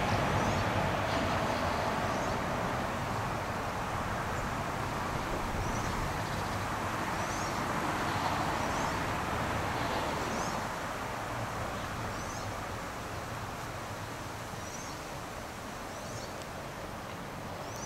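PKP Cargo ET22 electric locomotive hauling loaded coal wagons, rumbling steadily as it rolls slowly along; the noise eases off about ten seconds in.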